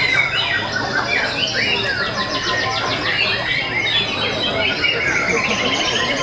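White-rumped shamas (murai batu) singing, several caged birds at once: many overlapping, fast-changing whistled phrases with rapid trills.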